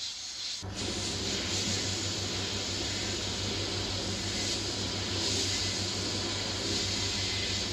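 Sandblasting cabinet gun blasting abrasive grit against a small metal part: a steady, loud hiss of air and grit, with a low hum coming in about half a second in.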